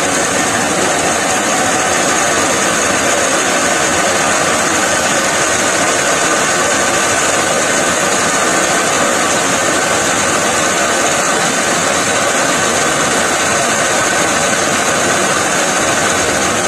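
Metal lathe running steadily while its cutting tool takes a light cut along a steel shaft, a continuous even machining noise with a high hiss.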